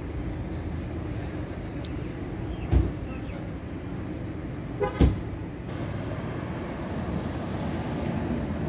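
Steady city street traffic rumble from passing cars, broken by two short loud sounds about three and five seconds in.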